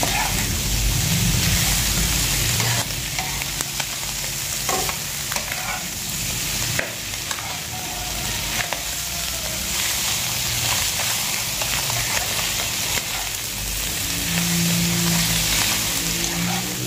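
Chicken skin, meat and chillies sizzling in a hot stone-coated wok as a metal spatula stirs and tosses them, with occasional sharp scrapes and clicks of the spatula against the pan.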